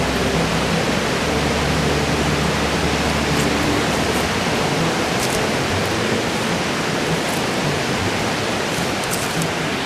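A steady rushing noise with faint high ticks now and then.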